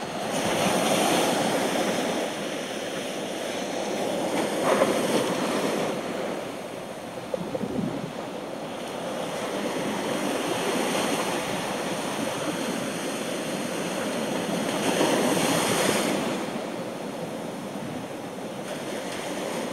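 Ocean surf breaking and washing up a sandy beach, a steady rush that swells and eases every few seconds as each wave comes in.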